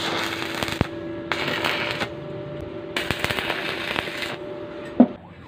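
Stick (arc) welding on steel tubing: three short bursts of electrode arc crackle and sizzle, about a second apart, over a faint steady hum. A single knock about five seconds in.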